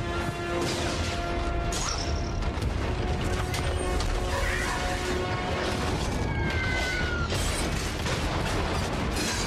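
Film battle sound design for a giant robot attack: mechanical clanking and whirring, with explosions, over an orchestral score.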